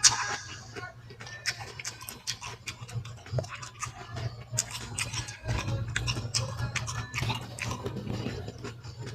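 Close-up chewing of fruit: a dense run of quick mouth clicks and smacks as the food is bitten and chewed.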